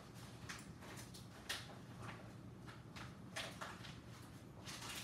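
Faint, scattered clicks and light taps from wires, tweezers and a soldering iron being handled while a wire is soldered to an XT60 connector, over a steady low hum.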